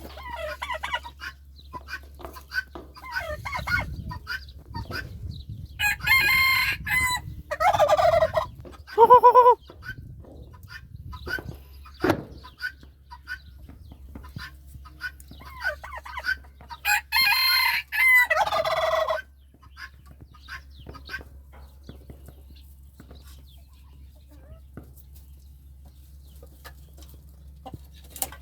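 Rooster crowing twice, each crow lasting about two seconds, with a short loud call just after the first crow and scattered clucking between the crows.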